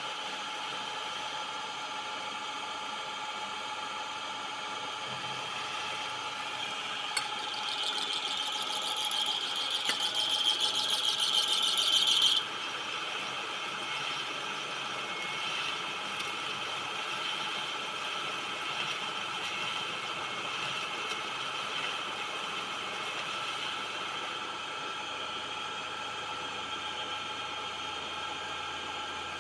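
Manual metal lathe running with a steady whine as a boring bar cuts steel inside a bored hole. About seven seconds in, a high-pitched squeal from the cut builds in loudness for about five seconds and then stops suddenly.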